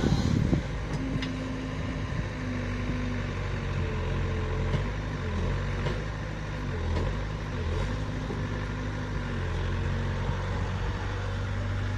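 Heavy machinery's diesel engine running steadily at a low pitch, its note shifting now and then.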